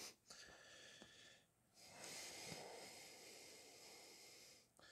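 Near silence: faint hiss, with a soft breath-like rush of noise lasting about three seconds in the middle.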